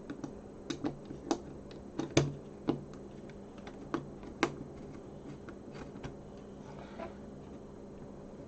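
Irregular sharp clicks and taps of hard plastic computer parts being handled and fitted together during reassembly of a Sinclair QL, most of them in the first half with the loudest about two seconds in.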